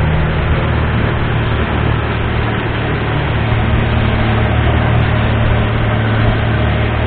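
Long-tail boat's big diesel engine running steadily at cruising speed, a loud low drone, with the rush of water and spray along the hull.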